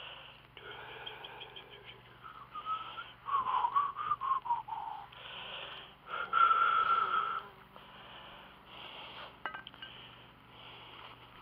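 A man breathing hard in repeated puffs, out of breath in humid heat, with two louder whistling wheezes, the first wavering and falling in pitch about three seconds in, the second steadier about six seconds in.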